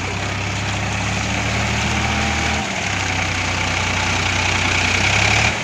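Tractor diesel engine running steadily, growing slightly louder, with a brief drop about two and a half seconds in.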